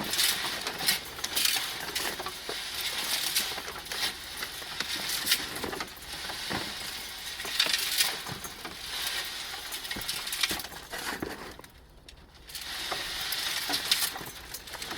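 Rocks and soil tumbling and rattling in a homemade trommel's rotating screen drum, with many irregular clinks and the scrape of a shovel as more dirt is shovelled in. The clatter drops away briefly about twelve seconds in.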